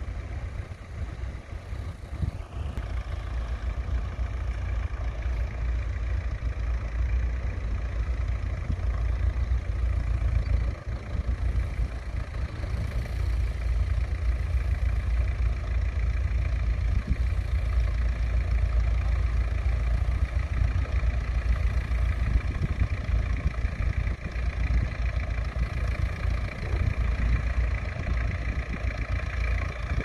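McCormick International tractor engine running steadily under load while pulling a mounted plough through the soil, growing louder as it draws near.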